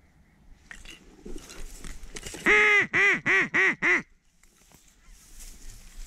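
Five loud duck quacks in quick succession, one long quack followed by four short ones, over faint rustling of dry reeds.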